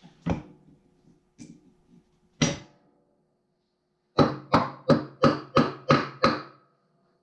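Hammer striking a block of wood to knock a 1942 Farmall H's transmission top cover loose while it is held under lifting tension. Two single blows, then a run of seven quick blows about three a second.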